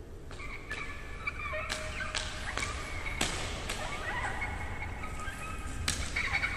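Opening of a slowed, reverb-heavy remix: wavering, drawn-out pitched calls over a steady low rumble, cut by several sharp cracks.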